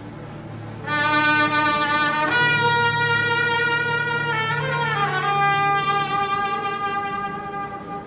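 Military wind band playing a slow melody: a solo wind instrument holds long notes, sliding down in pitch about halfway through, over soft sustained low chords from the band.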